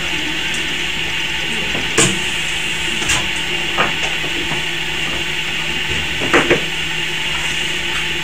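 Steady hum of a running machine, with a handful of sharp metallic clicks and clinks as metal tongs knock against the steel board frame of a small PCB soldering machine. The loudest click comes about two seconds in, and a quick pair comes near six and a half seconds.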